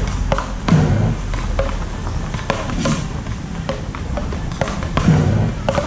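Beach racket paddles striking the ball in a fast rally: a quick, even string of sharp clacks, roughly two a second.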